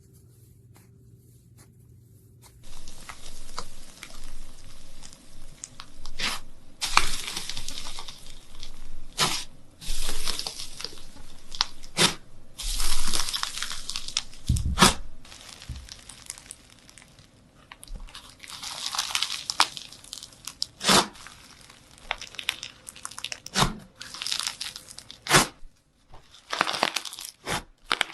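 Crisp crunching and tearing, in dense bouts broken by sharp snaps, starting about two and a half seconds in.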